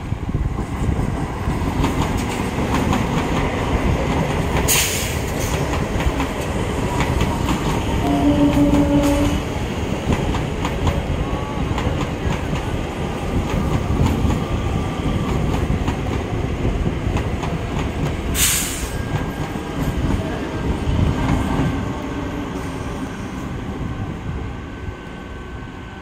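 Electric multiple unit (EMU) local train running past, its wheels rumbling and clattering steadily over the rails, with a short horn note about eight seconds in. Two brief sharp hissing noises cut through, and the rumble eases off near the end.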